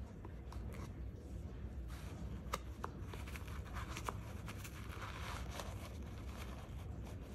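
Handling noise as gloved hands pull a plastic shaper rod and paper stuffing out of a pump. There are a few sharp plastic clicks, then rustling of the paper, over a low steady hum.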